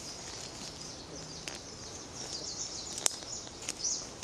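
Forest ambience with birds chirping now and then, and a few sharp clicks or snaps.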